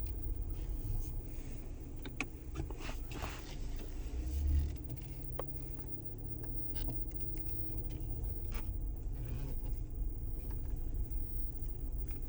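Low, steady drone inside a moving car's cabin, the boom that the recording was made to capture, swelling briefly about four and a half seconds in, with scattered light clicks and rattles over it.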